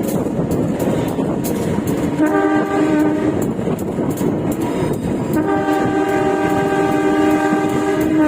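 Diesel locomotive horn sounding a short blast about two seconds in, then a long blast of about three seconds, as a warning for level crossings. Underneath runs the steady rumble and clatter of the train's wheels on the rails, heard from inside the carriage's toilet.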